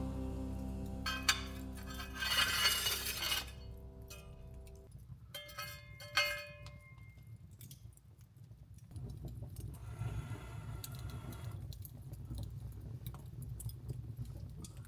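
Jazz music fading out over the first few seconds, while small glass objects clink and jingle; a few clear ringing clinks come about six seconds in. Then only a faint low rustle remains.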